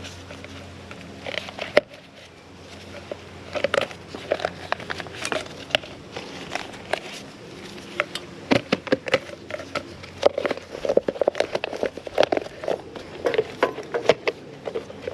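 Irregular clicks, taps and knocks of strut parts being handled and fitted together by hand during a strut rebuild, growing busier about halfway through.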